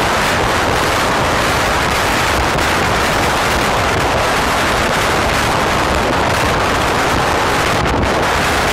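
Steady loud rush of tyre and wind noise from a car driving through a road tunnel, with no breaks or distinct events.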